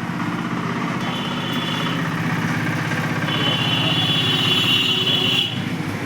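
A motor vehicle engine running steadily with a low hum, with a high steady tone heard twice over it.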